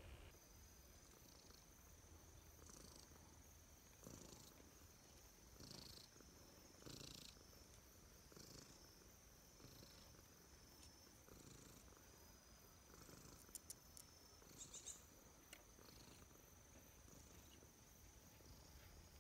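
Calico cat purring softly while being stroked, the purr swelling in slow breath cycles about every one and a half seconds.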